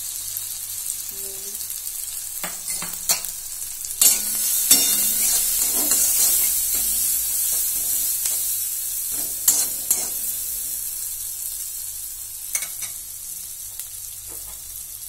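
Chopped onion, green chilli and turmeric sizzling in hot oil in an aluminium kadai, with a metal spatula scraping against the pan as it stirs them. The sizzle grows louder from about four seconds in, and several sharp scrapes stand out.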